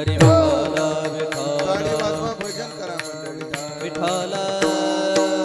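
Marathi kirtan music: steady held instrumental notes, a deep drum stroke whose pitch falls just after the start, and repeated sharp percussion strikes.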